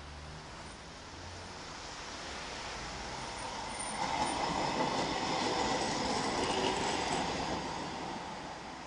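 Articulated city tram approaching and passing close by. Its running noise on the rails grows louder, is loudest from about four seconds in, and begins to fade as the cars go past.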